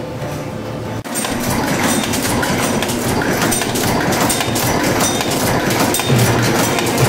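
Multi-station cold-forging bolt former running, starting about a second in: a loud, dense, rapid metallic clatter from its dies and transfer fingers.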